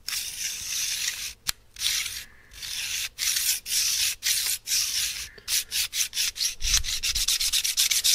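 Digital calipers' sliding jaw run back and forth along the beam, a scraping rasp. It comes in longer strokes at first, then in short, quick strokes of several a second near the end.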